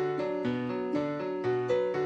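Solo piano playing a simple march-like melody with a bass line, notes struck in a steady rhythm.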